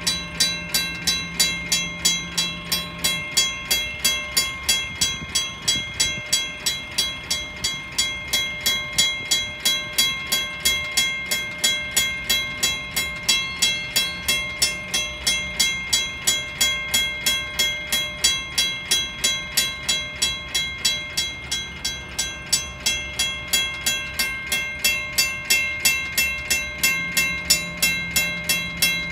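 Railroad grade-crossing bell ringing steadily at about three strikes a second while the crossing is activated with its gates down. A low steady hum underneath fades out a few seconds in and returns near the end.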